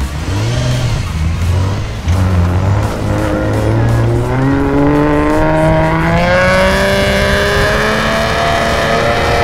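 Car engine revving hard, climbing in pitch for a few seconds and then held at high revs as the car pushes through snow.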